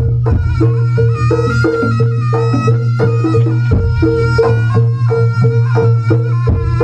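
Traditional East Javanese jaranan ensemble music: quick, evenly spaced drum strokes and a wavering high melody over a steady low tone.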